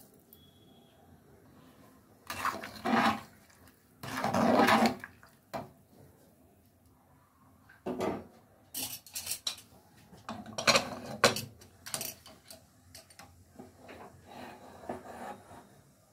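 Metal spoon stirring a pot of watery dal and rice, clinking and scraping against the sides of the metal pressure cooker in several short, irregular bursts.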